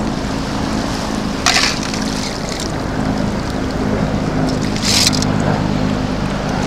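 Shallow seawater sloshing around wading legs as a long-handled sand scoop digs into the sandy bottom, with two short splashy scrapes, about a second and a half in and again at five seconds. A steady low hum runs underneath.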